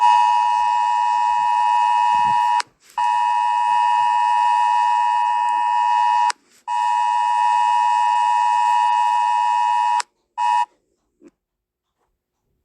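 Emergency alert attention tone: a harsh, steady two-pitch buzzing tone sounded in three long blasts of about three seconds each, followed by a short blip.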